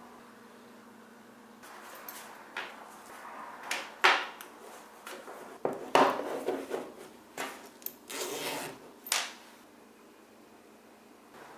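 Plastic chargers and cables being handled and packed into a mesh pouch on a desk: a run of clunks, taps and rustling, with two louder knocks about four and six seconds in.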